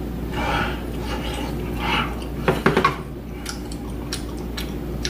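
Chopsticks clicking and scraping against a rice bowl and a pan, with a quick cluster of sharp clicks about two and a half seconds in, over a steady low hum.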